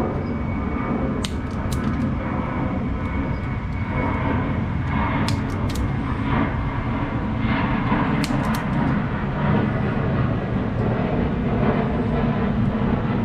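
Sharp clicks and snips, a few at a time, of side cutters trimming zip ties on a wiring harness, over a steady low rumble.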